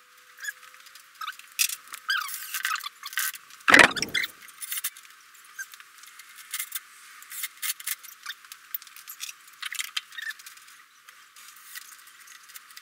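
Metal tools and small parts clinking and rattling in a car's engine bay as a part is being mounted, with one loud knock about four seconds in.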